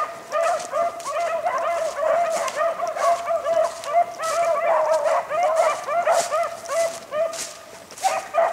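A pack of beagles baying as they run a rabbit's track: many short, rapid hound calls overlapping one another. It eases off briefly near the end.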